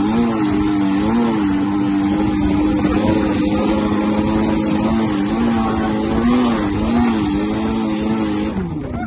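Turbocharged Honda F20B four-cylinder in a mid-engine Honda CRX, held at high revs while driving through sand dunes, heard from inside the stripped cabin; the engine note wavers slightly up and down as the revs shift. Near the end the pitch drops and the sound falls away as the throttle closes.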